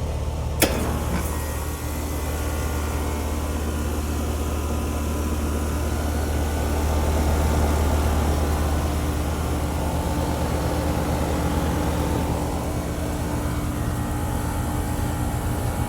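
Carrier Comfort Series heat pump outdoor unit starting up and running. A sharp click comes just after the start, then a steady low hum of the compressor and condenser fan, which swells a little midway.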